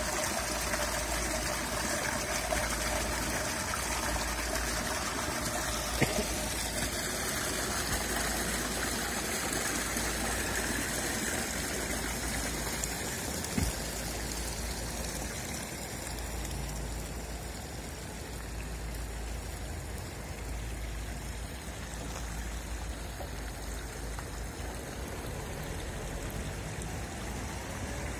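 Spring water gushing from a fountain's spout into a stone trough: a steady splashing rush that eases a little about halfway through. Two short sharp knocks, about six and thirteen seconds in.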